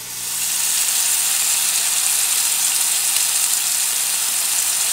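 Seasoned snook fillet sizzling in hot bacon grease in a cast-iron skillet. A steady high hiss that builds over the first half second and then holds level.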